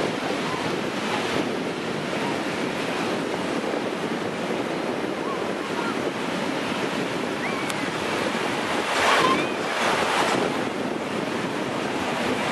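Small waves breaking and washing up a shallow sandy beach, with wind buffeting the microphone. The surf swells louder about nine seconds in and again a second later.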